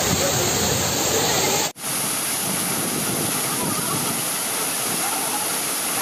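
Waterfall pouring into a rock pool, a steady rush of falling water, broken by a momentary dropout about two seconds in where the recording cuts.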